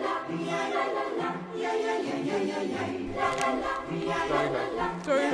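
Background choral music: a group of voices singing sustained chords together.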